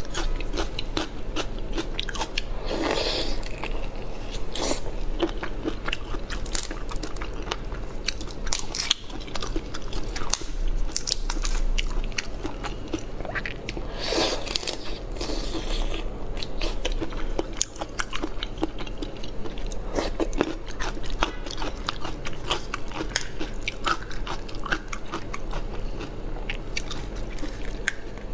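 A person eating marinated tiger prawns: wet chewing and crunching made of many small clicks, with louder crunches about three seconds in and again around the middle. Now and then the prawns' shells and flesh are pulled apart by hand.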